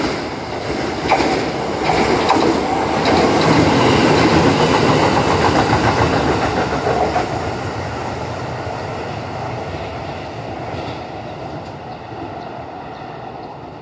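Kintetsu red-and-white electric train passing along the platform, its wheels clattering over the rail joints. It grows louder over the first few seconds, is loudest around five seconds in, then fades away as it leaves.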